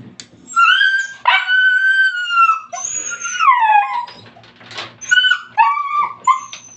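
A puppy whining in high, drawn-out cries that slide up and down: a long whine about a second in, another that falls away, then a run of shorter whimpers near the end. It is begging for the dog food being prepared.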